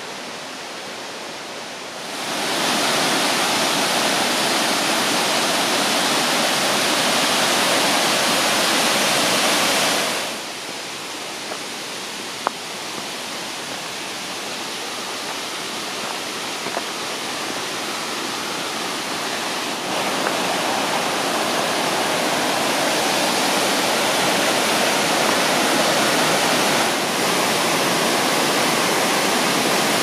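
The Gollinger Waterfall rushing, a steady hiss of falling water. It is louder over two long stretches, one starting shortly after the beginning and one from about two-thirds of the way through, and fainter in between.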